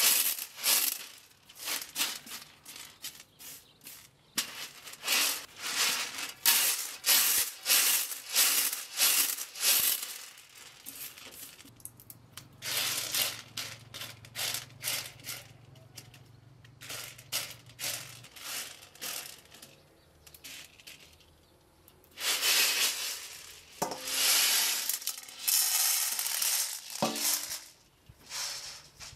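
Dry grain tossed and shaken on a large metal tray in quick repeated throws, each one a sharp rattle of kernels hitting the metal. In the middle it goes quieter with a low hum. Near the end comes a longer rush of grain poured off the tray, with two metal clanks.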